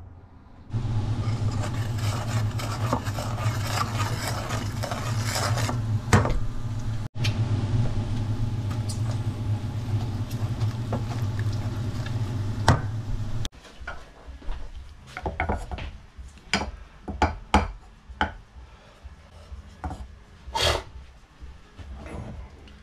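Wooden spoon scraping and stirring flour into melted fat in a stainless steel saucepan, making a roux, over a steady low hum. After about thirteen seconds the hum stops, and the stirring continues as scattered knocks and scrapes of the spoon against the pan.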